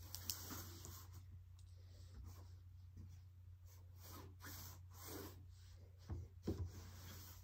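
Paper picture cards being slid and rearranged on a tabletop: soft rubbing swishes, with a couple of light knocks about six seconds in.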